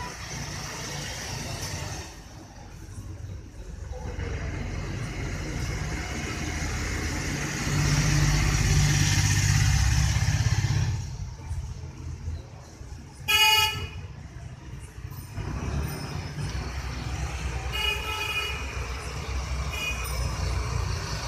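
Road traffic: a steady rumble of passing vehicles that swells as one goes by partway through, with two short car-horn toots, the second fainter.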